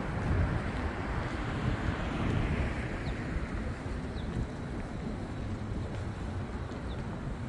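City street traffic: a steady rush of car engines and tyres, with a passing car swelling about two seconds in and then fading. A few faint, short, high chirps sound over it in the second half.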